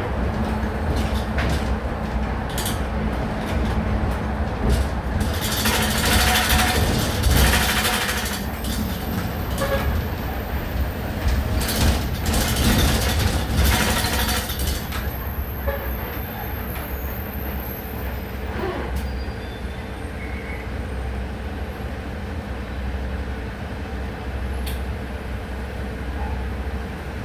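Volksbus 17-230 OD CNG city bus engine running with a steady low hum. There are two spells of loud air hissing a few seconds long, about a quarter of the way in and again about halfway through.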